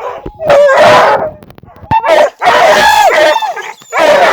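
Pack of hunting dogs baying on a paca: loud, drawn-out cries with bending pitch, the longest nearly a second and a half, the sound of the dogs working the quarry.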